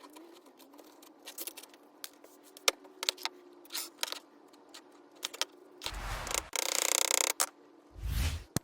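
Small metal pieces clinking: many separate light clicks, then louder rattling bursts about six and seven seconds in.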